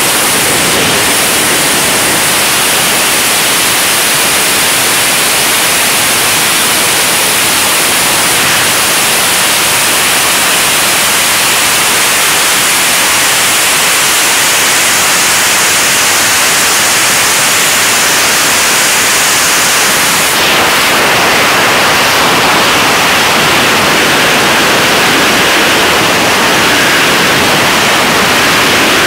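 Loud, steady rush of freefall wind over a skydiver's camera microphone, an even hiss with no pauses that shifts slightly in tone about twenty seconds in.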